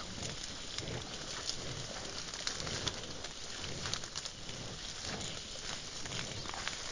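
Wild birds calling and singing in many short chirps, mixed with soft low notes that may be cooing.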